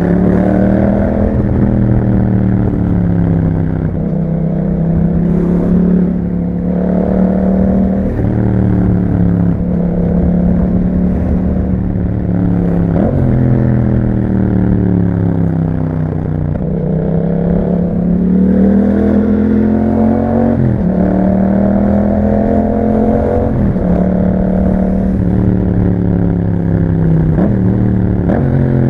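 2021 Yamaha MT-07's 689 cc parallel-twin engine running through an Akrapovic exhaust while being ridden. The revs rise and fall again and again, with several sudden jumps in pitch at gear changes.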